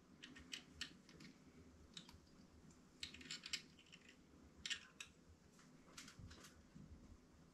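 Faint, irregular clicking and scraping of metal picks working inside a bike frame tube, fishing for an internally routed cable. The clicks come in small clusters, the loudest about three and a half seconds in and again near five seconds.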